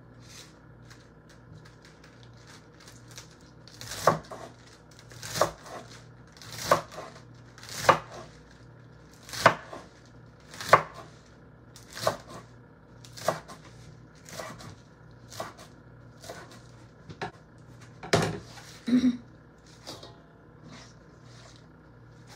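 Kitchen knife chopping romaine lettuce on a wooden cutting board: steady single chops about one every second and a quarter, beginning a few seconds in, with a louder pair of knocks near the end.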